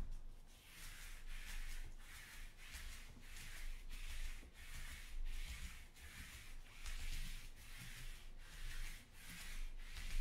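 Sticky lint roller rolled back and forth over a table mat, a crackly rubbing stroke each pass, about two strokes a second.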